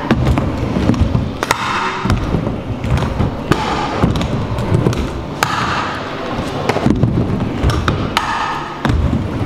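Stunt scooter riding a wooden mini ramp: wheels rumbling across the plywood, swelling every couple of seconds with each pass, with sharp knocks and thuds of the wheels and deck against the ramp and coping at irregular times.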